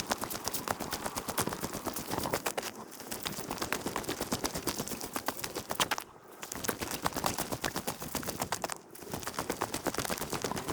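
Footsteps crunching along a rough path: a dense crackle of many sharp clicks, broken by short pauses about three, six and nine seconds in.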